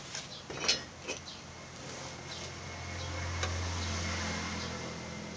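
A few light clicks and taps as aluminium frame pieces and a ruler are handled and set against each other on a workbench, the sharpest in the first second. A low hum swells and fades away in the middle.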